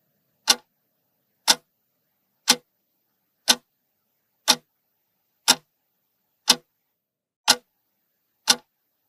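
Clock-like ticking sound effect, one sharp tick a second, nine ticks in all with silence between, counting off the seconds of a countdown.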